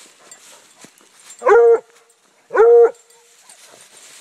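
Bluetick coonhound giving two loud, short, pitched barks about a second apart, baying over a raccoon it has caught.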